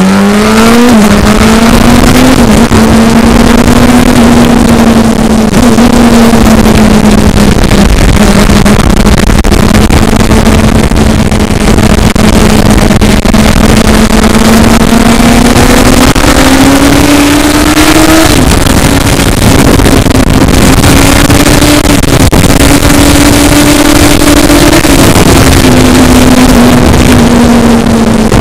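Vehicle engine running hard at high, nearly steady revs, heard onboard. Its pitch rises and dips a little a few times, and loud wind noise on the microphone runs under it.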